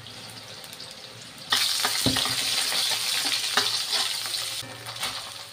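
Oil sizzling in a steel wok as cut vegetables fry: eggplant and green beans, then chopped shallots, garlic and chilies. The sizzle jumps much louder about a second and a half in and drops back near the end, with short clicks and scrapes of the stirring spatula against the wok.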